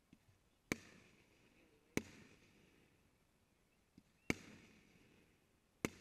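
Aerial fireworks shells bursting: four sharp bangs spaced one to two seconds apart, each trailing off in a rolling echo.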